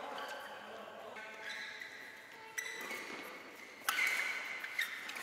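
Badminton rally: two sharp racket strikes on the shuttlecock, about two and a half seconds in and again near four seconds, the second the louder, with high squeaks from players' shoes on the court mat.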